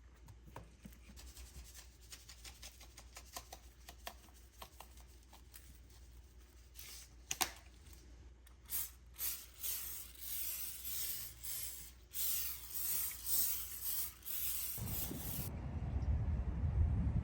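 Light clicks and taps from handling objects, then a run of rubbing or scrubbing strokes, with a low rumble starting near the end.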